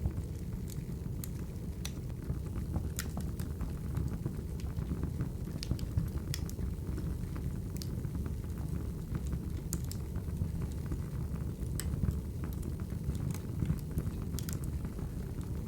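Wood fire crackling: a steady low rush of burning logs with irregular sharp pops and snaps every second or so.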